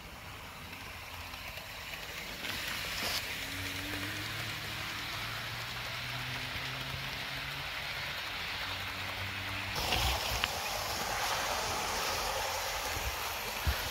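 Hornby OO gauge model locomotive and coaches running along the track: a steady rolling hiss of wheels on rail with a faint low motor hum. It grows louder about ten seconds in, with a few low thumps.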